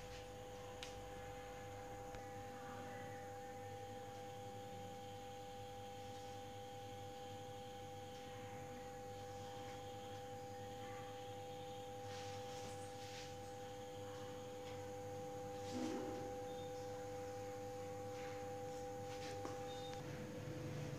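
Two steady pure tones held together over a low hum, the higher one cutting off near the end. A brief faint rustle comes about three-quarters of the way through.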